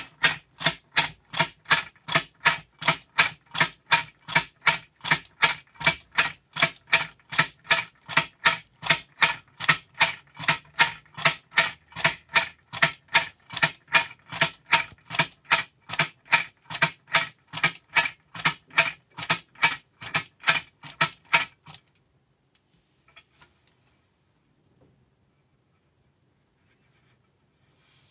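Clockwork tin clown rocking-chair toy clacking in an even rhythm, about two clacks a second, as it rocks. About 22 seconds in the clacking stops as the wound spring runs down; then near silence with a faint handling rustle near the end.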